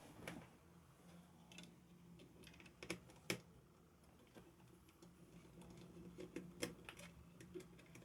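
Faint, scattered clicks and taps of small hard parts being handled, the loudest a little over three seconds in: hands and tools working on an MSI RX 5500 XT graphics card.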